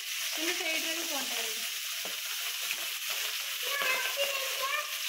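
Food frying in hot oil in a pan, a steady sizzling hiss, with someone's voice heard indistinctly twice over it.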